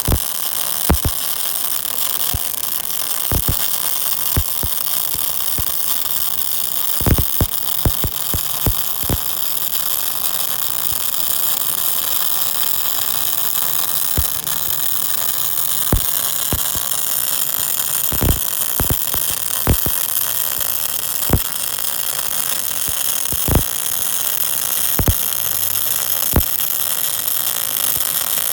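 MIG/MAG welding arc from a 500 A welder burning steadily: a continuous hiss with irregular sharp pops and crackles.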